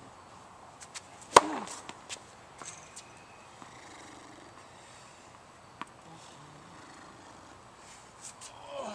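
Tennis serves struck with a ProKennex Black Ace racket: one sharp racket-on-ball hit about a second and a half in, the loudest sound, followed by a few fainter knocks. Another serve is struck near the end.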